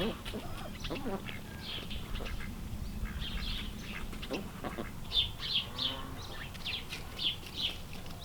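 Ducks calling with short, high peeps, scattered at first and then coming several a second in the second half.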